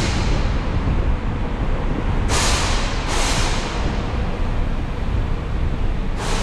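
Car driving on wet streets, with a steady low road and engine rumble. Windshield wipers swish across the glass in pairs: two sweeps a little over two seconds in, and another starting near the end.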